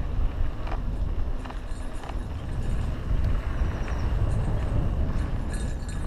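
Mountain bike rolling along a dirt singletrack: wind rumbles steadily on the camera's microphone over tyre noise on the dirt, with scattered clicks and rattles from the bike going over bumps.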